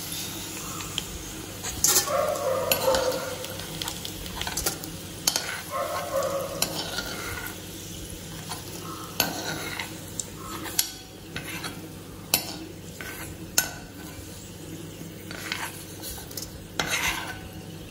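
Hot oil sizzling in an iron kadai as a steel spoon scrapes and knocks against the pan, scooping deep-fried bitter gourd slices out of the oil. The knocks come irregularly, about every one to two seconds.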